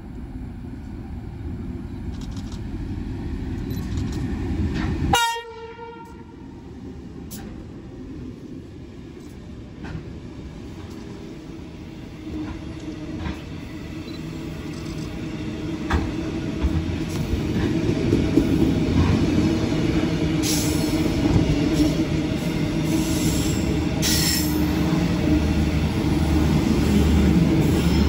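Container freight train approaching and running through the station. A short horn blast sounds about five seconds in. The wagons then roll past with a rising rumble and wheel clatter, and a few short high-pitched wheel noises come near the end.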